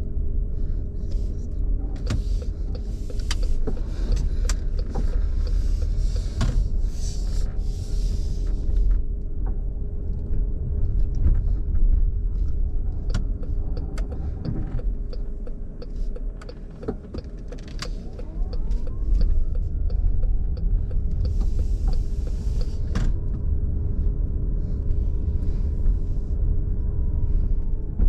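Cabin sound of a 2020 Chrysler Pacifica Hybrid on the move: a steady low road rumble with the hybrid's electric drive motor whining, its pitch gliding up and down as the van speeds up and slows. Occasional sharp clicks and spells of hiss come through.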